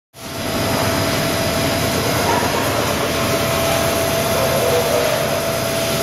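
Industrial coffee grinder running steadily: a constant mechanical noise with a steady mid-pitched whine, cutting in abruptly just after the start.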